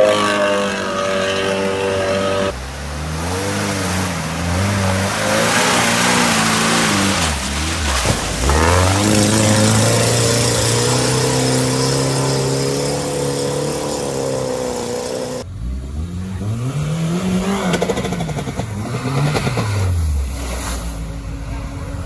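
Off-road 4x4 engines revving under load, the pitch rising and falling again and again, with abrupt changes in the sound a couple of times.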